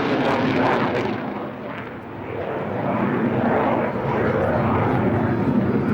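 Aircraft engine noise of a display aircraft flying past. It fades a little and loses its high edge about a second in, then builds back up and holds loud.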